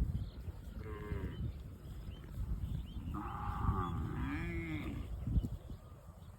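Cattle mooing: a short moo about a second in, then a longer moo that rises and falls in pitch from about three to five seconds in.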